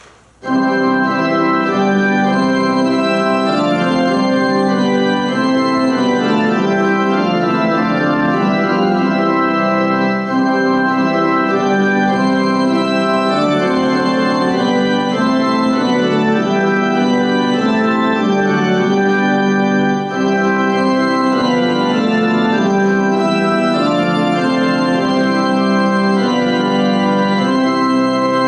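Organ playing a hymn tune in sustained full chords, starting about half a second in.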